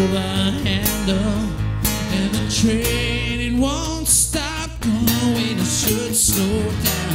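A band playing a song: a man singing lead over two strummed acoustic guitars and an electric bass.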